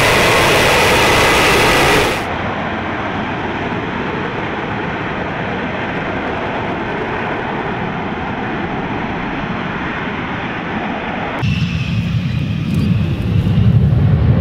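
Jet engine noise of an F-35B hovering in a vertical landing: a steady loud roar, with a faint high whine in the first two seconds before an abrupt cut to a duller, steadier roar. About eleven seconds in, a sharp cut brings in a deeper, heavier jet rumble from an F-111 on the runway, growing louder toward the end.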